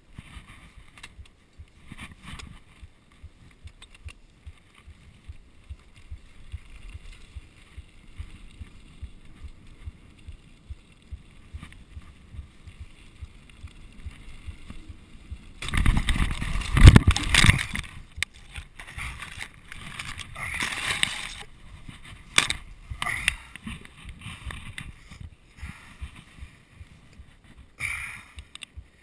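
Mountain bike rolling down a dirt singletrack: a low rumble and rattle of tyres and frame over the bumpy trail. About halfway through comes a sudden, loud clattering for a couple of seconds, then scattered bangs and scrapes, the sound of the bike going down in a crash.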